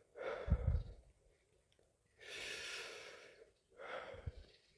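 Heavy breathing from a man eating Carolina Reaper chillies: a sharp sniffing breath about half a second in, a long breath blown out in the middle, then another sharp breath in near the end.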